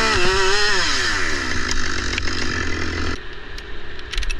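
Chainsaw running at full throttle while cutting through a tree trunk. Its engine pitch drops as the bar loads up in the wood, then holds steady before stopping abruptly about three seconds in. A few light metal clinks of rigging chain follow near the end.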